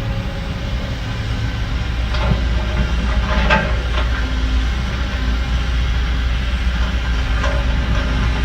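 Heavy diesel earthmoving machinery running steadily, with a few metal clanks about a third of the way in.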